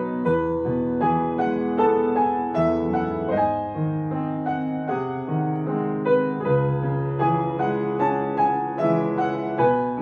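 Piano music: a calm, steady run of single notes over held lower chords.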